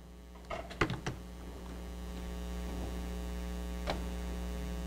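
Steady electrical mains hum that comes up louder about a second and a half in, with a few clicks in the first second and one more near the end.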